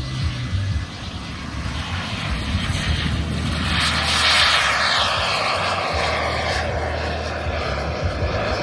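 Turbine engine of a 2.5 m radio-controlled F-16 model jet running at takeoff power as the jet lifts off and climbs past, loudest about four seconds in. After that its whine falls in pitch as it pulls away.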